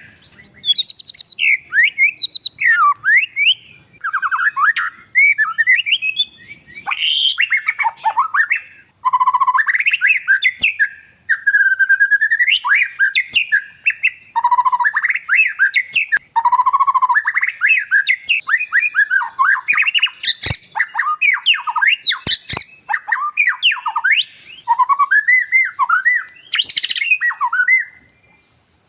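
Oriental magpie-robin singing a loud, varied song of whistled phrases, rising and falling notes and harsh chirps, in bursts with brief pauses. A few sharp clicks come about two-thirds of the way through.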